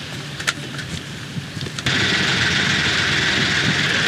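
Boat's engine running steadily, with a few light knocks of poles and gear on the wooden deck. About two seconds in, a louder steady rushing noise sets in abruptly.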